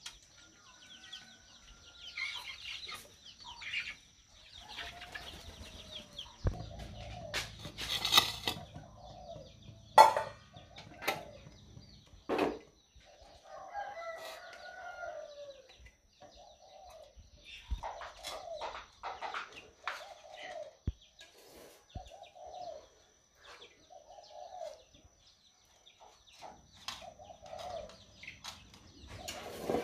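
Chickens clucking in short repeated calls, with a few sharp knocks and clatters near the middle.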